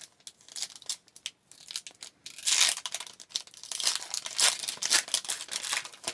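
A trading-card pack wrapper being torn open and crinkled, starting about two seconds in after a few light clicks.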